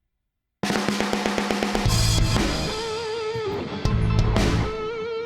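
Playback of a rock track built on the BFD3 virtual drum kit, with kick and snare, heavy bass and sustained, wavering pitched lines, mixed through the API Vision console emulation in Luna. It starts about half a second in, after a brief silence.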